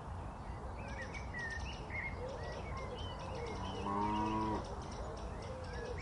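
Farmyard ambience: small birds chirping throughout, and a cow mooing once, briefly, about four seconds in.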